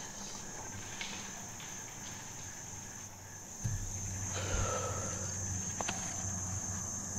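Steady high-pitched chorus of insects, such as crickets. From a little past the middle it is joined by low rumbling and a few faint knocks.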